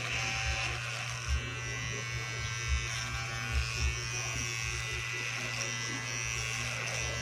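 Electric hair clipper buzzing steadily as it is run through hair, cutting it, with a few soft bumps as the blade moves against the head.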